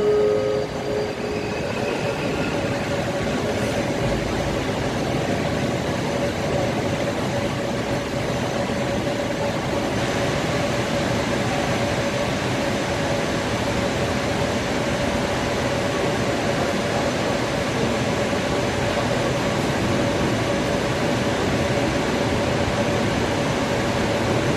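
Metro train approaching through the tunnel: a steady rumble with a constant hum, and a few brief tones in the first second or two.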